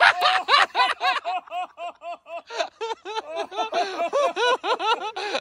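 High-pitched, rapid laughter: a long unbroken run of quick 'ha' notes, about six or seven a second.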